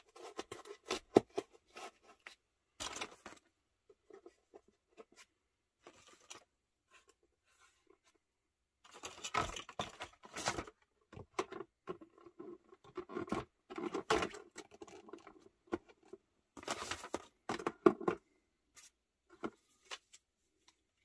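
Clear plastic packaging insert being handled and moved on a table: intermittent crinkling and scraping with light clicks, busiest about halfway through and again near the end.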